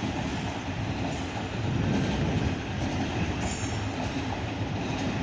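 Two coupled Class 707 electric multiple units running into the platform with a steady rumble of wheels and traction equipment, and a brief faint high whine about three and a half seconds in.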